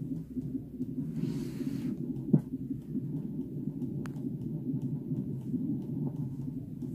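Sonicaid FM800 Encore fetal monitor's loudspeaker playing the baby's Doppler heartbeat as a steady low pulsing whoosh. A sharp click comes about two and a half seconds in, and a fainter one about four seconds in.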